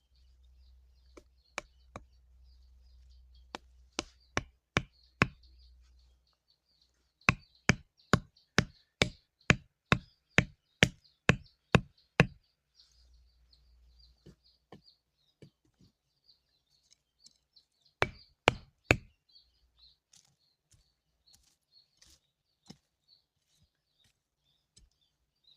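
Sharp knocking strikes, like chopping or hammering on wood. A few come at uneven intervals, then a steady run of about a dozen at roughly two a second, then three more quickly together.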